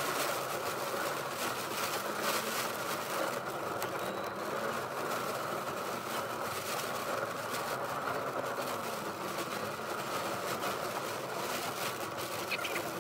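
Heavy rain pattering on a moving car's windscreen and roof, heard from inside the cabin over steady engine and road noise.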